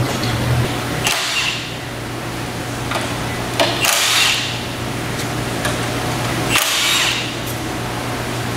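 Cordless impact tool run in three short bursts, each under a second, unfastening bolts on the top of a vertical hollow shaft electric motor as it is taken apart. A steady low shop hum runs underneath.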